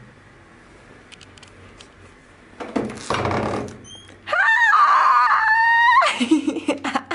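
A hotel room door opening with a short rustle, then women shrieking with excitement in high, held squeals for about two seconds, breaking into laughter near the end.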